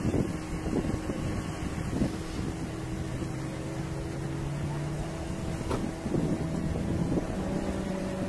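Motorboat engines droning in a steady low hum that shifts pitch about five to six seconds in, with wind buffeting the microphone.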